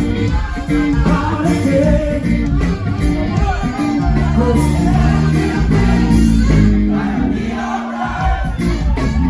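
Live band playing loud amplified music with a singer's voice over steady bass. The bass briefly drops out about eight seconds in.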